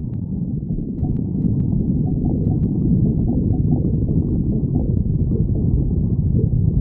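Human stomach growling: a steady, low, continuous rumble with a few faint clicks in the first three seconds.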